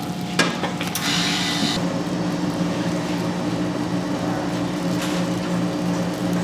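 A steady low machine hum with a few level tones, with a click and a short burst of rustling plastic about a second in as rice is scooped from a plastic bag liner.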